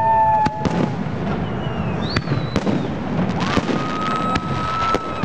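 New Year fireworks going off: scattered sharp bangs over a steady crackling rumble. Several whistling tones glide up and then hold steady, one for over a second near the end.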